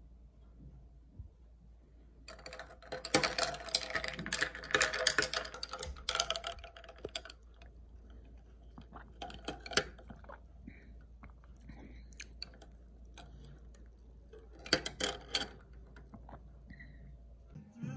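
Ice cubes clinking and rattling against a glass tumbler as an iced latte is stirred with a straw: a busy run of clinks for about four seconds starting two seconds in, then scattered clinks, and another short run near the end.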